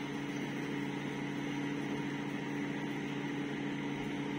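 Samsung microwave oven running mid-cycle: a steady hum with a constant low tone while it heats food.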